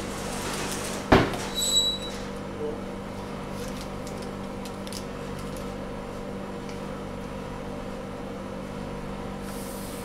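Steady hum of a refrigerated pastry display case, with a sharp knock about a second in and a brief high ring just after as pastries are handled and set into the case; a few light clicks follow.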